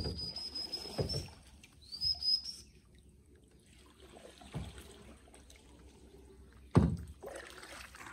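A bird gives a long, thin, high whistle that rises slightly, then a shorter one about two seconds in. Dull knocks of water against a small boat's hull come between, the loudest one near the end.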